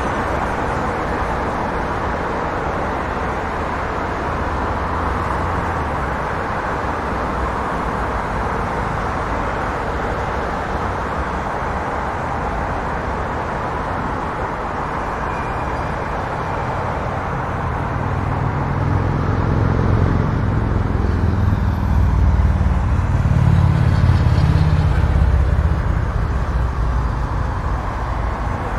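Steady city road traffic: a continuous roar of cars passing. About two-thirds of the way in, a deeper engine rumble swells as a vehicle comes close, is loudest a few seconds later, then fades away.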